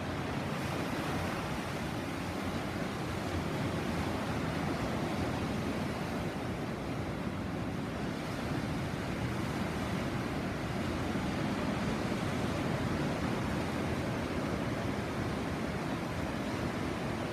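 Caribbean sea surf washing steadily onto the shore, a continuous rush of waves without distinct breaks, with some wind on the microphone.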